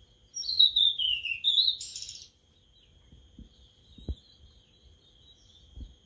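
A caged sulingan laut (tledekan laut) songbird sings one short phrase about half a second in. It is a clear whistled note falling in pitch, then a quick rising note ending in a harsh, buzzy burst, lasting about two seconds. A steady high-pitched insect trill continues underneath.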